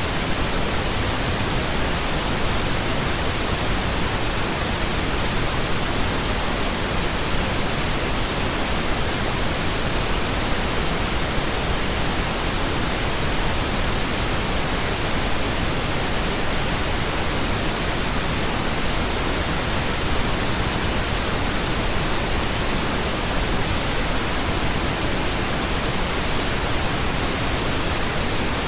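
Steady pink noise: an even, unchanging hiss spread across the whole range of pitch, with no events or changes.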